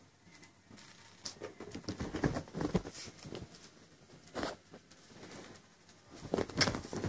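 Kitten scrambling about on a fabric sofa while a hand grabs and tosses its small toy: scattered soft pattering, rustles and taps in a few short clusters.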